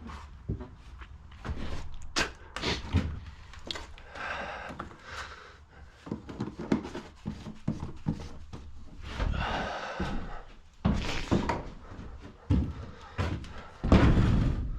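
A series of irregular thumps and knocks, with two longer, rougher sounds in between, one about four seconds in and one about nine seconds in.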